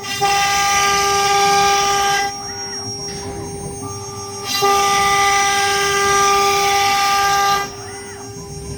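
CNC wood router spindle running with a steady high-pitched whine. It grows much louder and harsher twice, for about two and three seconds, and drops back in between.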